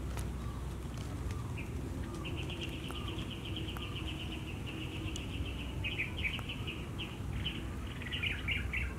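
A bird singing in the background: a rapid high trill lasting about three seconds, then a run of short broken chirps, over a low steady rumble.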